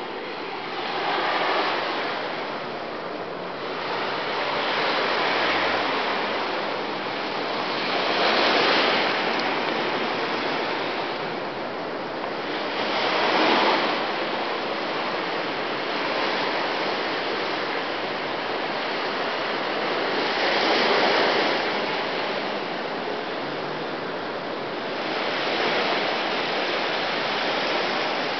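Ocean surf breaking on a sandy beach: a steady wash of waves that swells and eases every few seconds.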